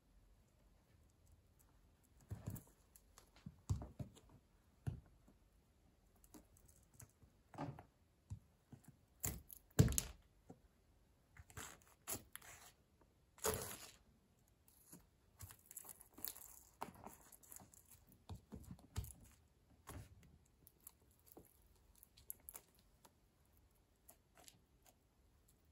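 Wooden pencil splintering and crackling under a stiletto heel, with clicks of the heel tip on a hard floor and splinters scraping. Irregular snaps and crackles, the loudest about ten and thirteen seconds in.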